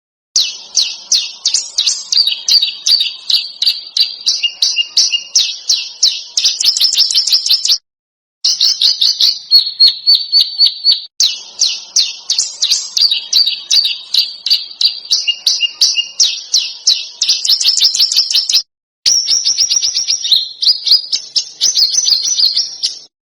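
A recorded songbird singing fast, sharp, densely repeated chattering notes (the 'tembakan' style of phrase used in masteran tracks). It comes in long phrases that are cut off abruptly by short dead-silent gaps three times.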